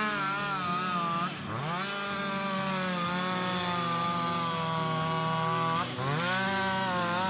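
Two-stroke chainsaw running at high revs. Its pitch drops sharply and climbs back twice, about a second and a half in and again near six seconds.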